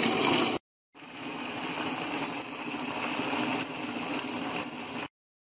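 Fish deep-frying in hot oil in a kadai, a steady sizzling and bubbling. It drops out for a moment under a second in, comes back, and cuts off suddenly near the end.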